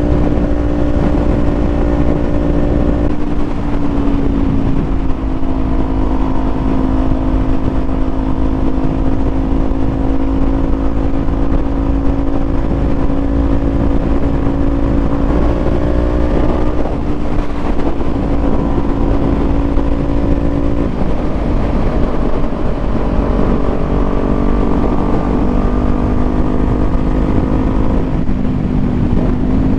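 Parallel-twin sport motorcycle engine running under way at a steady speed, its note holding level for stretches and stepping to a new pitch a few times with gear changes and throttle, over wind rumble.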